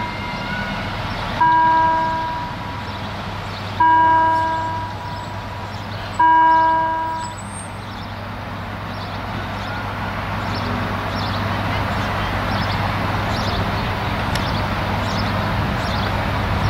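Level-crossing warning bell striking three times, each stroke ringing out and fading, about two and a half seconds apart, then falling silent. A steady low hum runs underneath.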